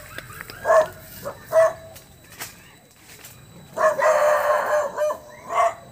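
Rooster crowing: one long held crow about four seconds in, with a few short calls before and after it.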